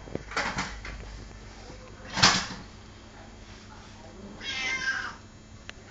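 A domestic cat meowing a few times: short calls, the loudest about two seconds in, and a longer drawn-out meow near the end.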